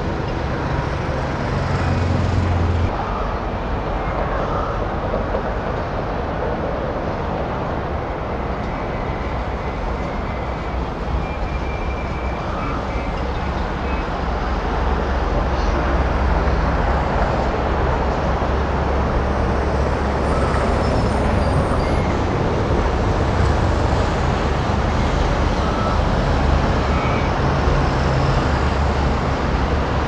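Steady road-traffic din of passing cars and trucks, with a low engine rumble underneath that grows a little louder about halfway through.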